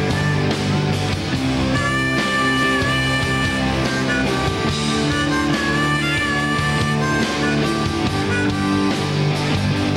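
Live rock band playing an instrumental break with electric guitars, bass and drums under a lead melody that bends in pitch; a neck-rack harmonica joins near the end.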